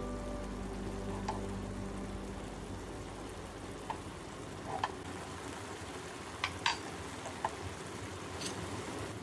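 Tomato and garlic sauce simmering in a pan: a soft steady sizzle with scattered sharp pops of bubbles bursting, about seven in all.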